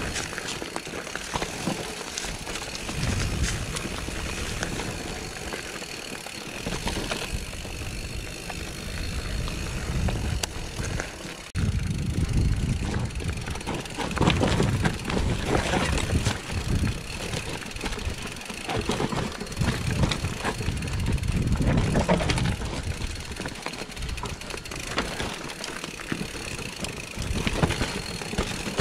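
Mountain bike riding down a rocky singletrack trail: an uneven low rumble from the tyres that swells and fades, with many small rattles and knocks from the bike over stones.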